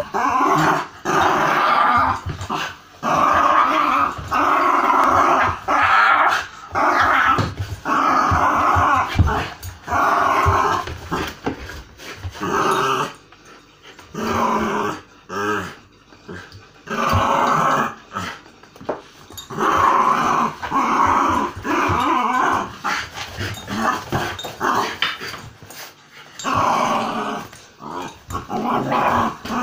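Small terrier growling loudly over an empty soy sauce bottle it is pawing and mouthing: a worked-up, playful guarding growl. The growls come in repeated bouts of a second or two with short breaks, quieter for a few seconds around the middle.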